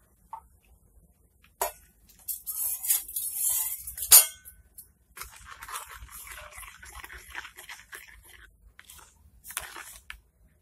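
A plastic measuring scoop scraping and stirring stain-remover powder and water in a plastic tub, with a sharp click of the scoop against the tub about four seconds in, followed by a longer spell of scratchy stirring.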